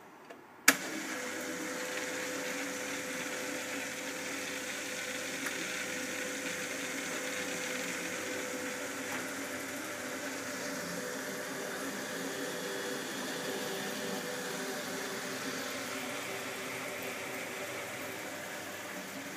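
Combi boiler heating system: a sharp click, then a steady hum with several low tones and a hiss of water through the pipework, as the system runs after being topped up via the filling loop.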